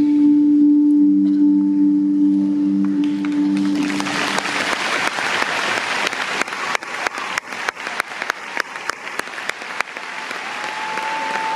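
A held low musical drone fades out, and about four seconds in an arena crowd breaks into applause and cheering, with one person clapping quickly and steadily close by. A high held musical note comes in near the end.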